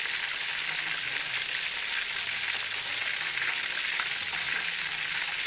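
Chicken pieces frying in hot oil in a pan: a steady sizzle with a few small pops.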